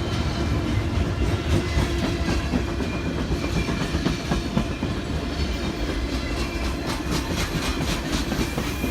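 A train passing close by, a steady low rumble of cars on the rails, with wheels clicking over rail joints in quicker succession toward the end.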